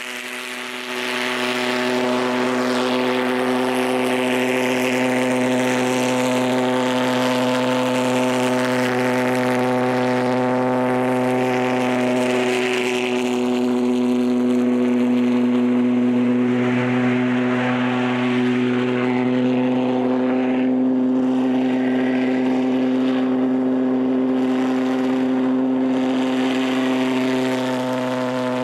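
Maddox Jets Vulcan valveless pulsejet running on liquid propane, a loud, continuous buzzing drone of steady pitch that gets louder about a second in as it pushes the go-kart along.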